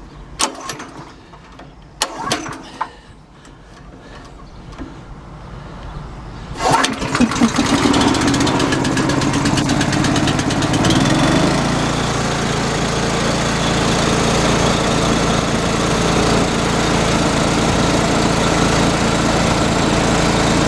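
Gas-powered North Star air compressor being pull-started with the choke on. A few short clacks come from the recoil-start pulls, then about six and a half seconds in the engine, which the owner believes is a 13-horsepower Honda, catches and runs up. Partway through, its note shifts and it settles into steady running while the compressor pumps up its tank.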